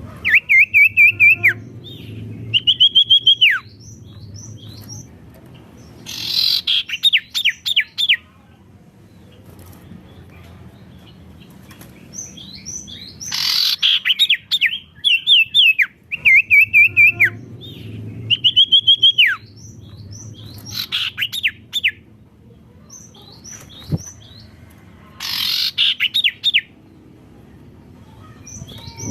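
A sirtu songbird singing loudly in separate phrases a few seconds apart. Some phrases are a steady, high, trilled whistle that drops away at the end; others are quick runs of falling notes.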